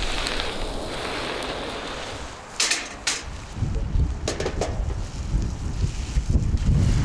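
Onions and peppers sizzling in a large steel frying pan on a grill, with gusts of wind buffeting the microphone. A few sharp metallic clicks come in the middle, from tongs against a steel bowl of fish pieces.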